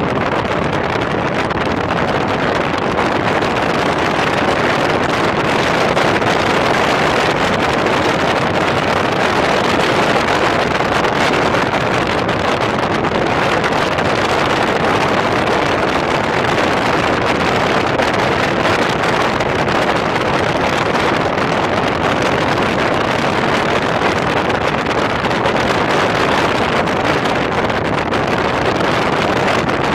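Steady rush of wind and road noise from a Smart Roadster driving along with its roof off, the wind buffeting the microphone.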